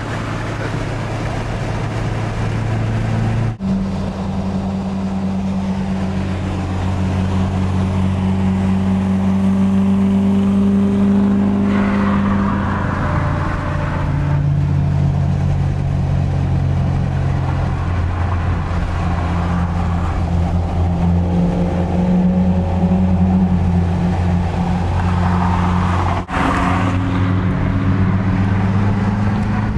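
Car engine and tyre noise heard from inside the cabin while cruising at a steady speed on a highway: a steady engine hum that shifts pitch slightly now and then. The sound drops out very briefly twice, a few seconds in and near the end.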